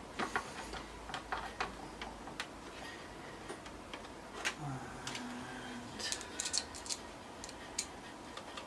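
Irregular small metallic clicks and taps, with a quick cluster about six seconds in: screws being handled and driven with a screwdriver to fix a motherboard into a PC case.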